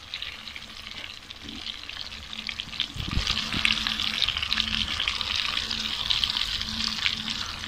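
Stuffed tinda gourds sizzling as they fry in hot ghee over a low flame, with a spoon turning them in the pot and a soft knock about three seconds in.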